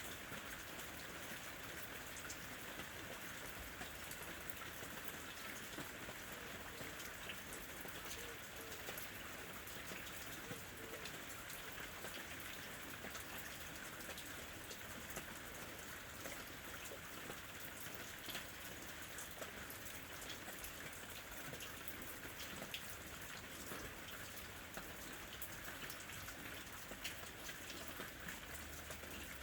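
Steady rain falling, a continuous hiss with many small drop ticks pattering on a surface.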